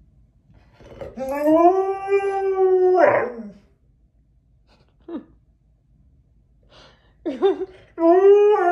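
A husky howling: one long held howl starting about a second in that breaks into a falling, yodelling end, a short yip around five seconds, then a wavering call and another long howl starting near the end.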